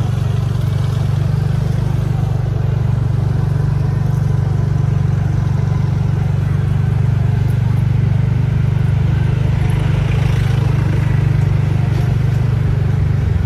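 Motor vehicle engine running steadily: a loud, low, even drone.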